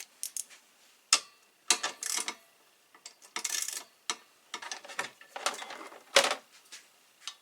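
A ratchet wrench with a 7mm socket clicking while the bracket's bolts are undone, mixed with irregular metal clinks and rattles of the loosened hardware.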